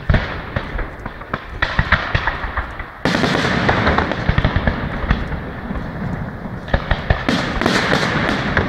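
Fireworks display: aerial shells and crackling stars going off in a dense, continuous run of pops and crackles, jumping suddenly louder and thicker about three seconds in.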